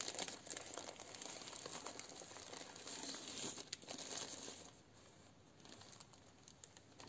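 Faint crinkling and rustling of a plastic bag and crumbling potting mix as hands work a rooted grape cutting free. The rustling dies down about two-thirds of the way through, leaving a few light crackles.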